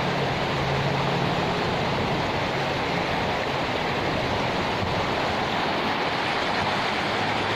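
Steady rush of flowing river water, an even roar that doesn't change.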